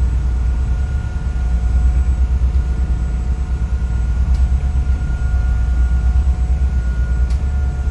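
Sightseeing boat's engine running steadily under way, a loud low drone with a faint steady whine above it, mixed with the rush of water and wind.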